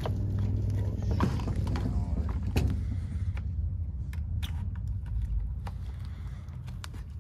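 Scattered clicks and knocks of metal and plastic parts as a Stihl chainsaw is handled and worked on during reassembly, over a steady low rumble. Two sharper knocks come in the first few seconds, then lighter ticks.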